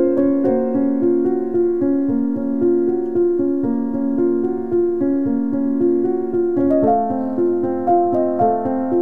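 Background piano music: a steady melody of held notes, moving into a new passage about two-thirds of the way through.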